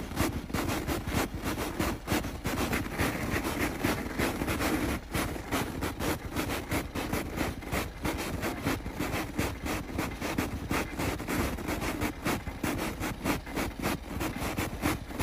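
Lifted Jeep Wrangler's engine running as it creeps over frozen snow crust, with a rapid, irregular crackling throughout.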